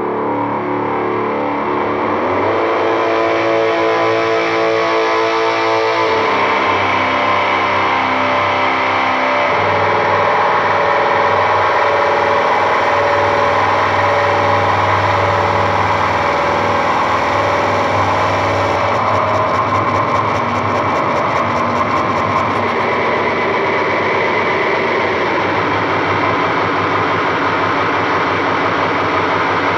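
Harsh noise music: a loud, dense wall of distorted noise with droning pitched tones that jump to new pitches a few times in the first ten seconds, then mostly churning noise.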